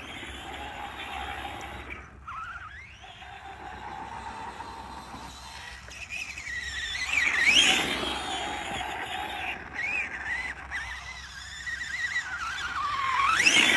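Traxxas Stampede 4x4 radio-controlled monster truck's electric motor whining up and down in pitch with the throttle, its tyres scrabbling over loose dirt. The whine climbs highest and loudest about seven seconds in and again in a rising sweep near the end.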